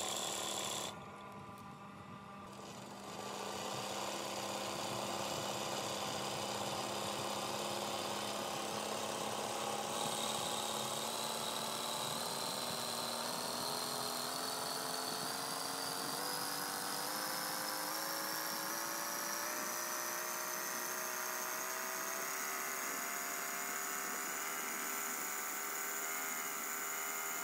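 Electric sewing machine running at speed while stitching free-motion embroidery, a steady motor whine with the needle going. It drops away for a couple of seconds about a second in, then picks up again, and over the second half its whine rises slowly in pitch as the machine speeds up.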